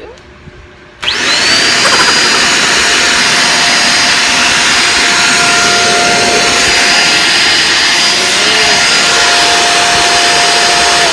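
Deerma DX700 vacuum cleaner switched on about a second in. Its motor spins up with a rising whine, then runs loud and steady with a high whine over the rush of air.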